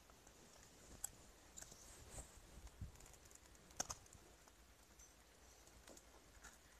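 Near silence with faint, scattered clicks and small crunches from a knife cutting dried coconut (copra) pieces into a steel bowl; one sharper click comes just before the four-second mark.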